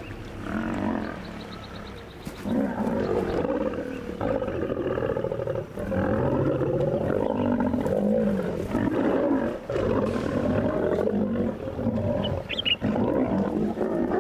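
Lions snarling and roaring in a fight as they attack a crocodile, a brief burst under a second in, then near-continuous overlapping snarls from about two and a half seconds on.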